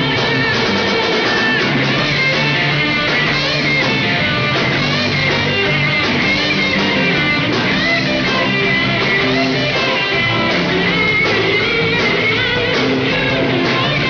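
Live rock band playing: electric guitars over bass guitar and drums.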